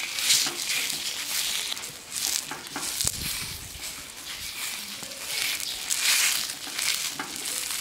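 Pork belly skin sizzling and crackling against a dry, hot iron wok as a metal spatula presses and scrapes it, singeing off the bristles. The hiss swells and fades several times, with a few sharp clicks.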